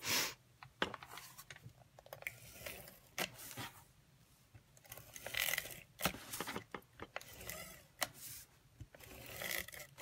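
Cardstock and paper being handled on a work table: scattered light scrapes, rustles and taps.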